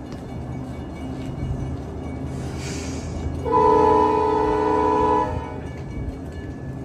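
Siemens Venture passenger trainset humming at a standstill, with a short hiss about two and a half seconds in, then its horn sounding one steady chord-like blast of about two seconds before departure.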